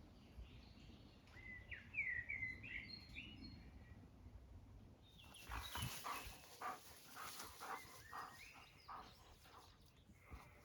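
Faint birdsong with short warbling phrases in the first half. About halfway it gives way to a run of short knocks and brief chirping notes.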